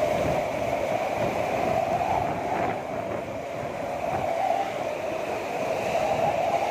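Strong typhoon wind rushing steadily, with a howl that wavers slightly in pitch.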